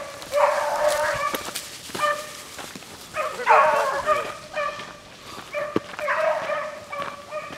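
Rabbit dogs baying in repeated bouts while running a rabbit, several voices overlapping, with short pauses between bouts.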